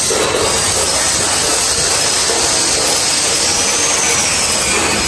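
Steady loud machinery noise of a motorcycle exhaust factory at work: a continuous hiss and rumble with a faint high whine that slowly rises and falls.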